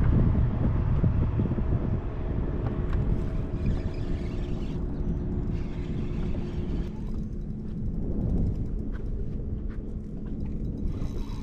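Boat motor running steadily with a low rumble and a constant hum, with wind and water noise around it.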